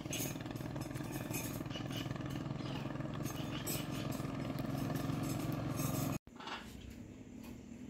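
A motor running with a steady low hum and faint clicks over it; it cuts off suddenly about six seconds in, leaving a quieter background.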